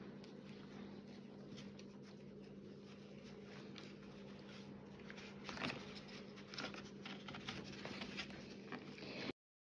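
Faint rustling and small soft taps of hands handling and pulling 4 mm macramé cord, over a steady low hum. The sound cuts off abruptly near the end.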